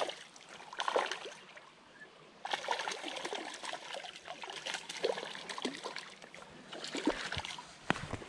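A hooked brook trout splashing at the surface of shallow water in irregular bursts, with a few sharp clicks near the end.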